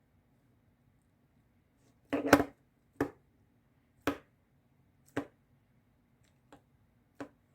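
A quick cluster of sharp taps, then single short knocks about once a second, the later ones fainter.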